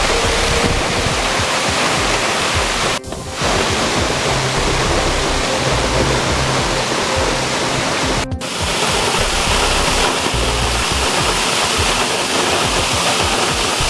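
Waterfall rushing steadily, with background music underneath. The rush drops out briefly twice, at about three and about eight seconds in.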